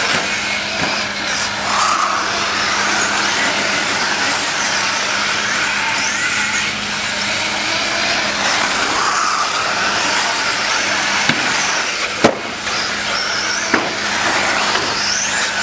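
1/8-scale RC late model race cars lapping an oval, their motors whining up and down in pitch as they speed past. A few sharp knocks ring out about 11, 12 and 14 seconds in, the middle one the loudest.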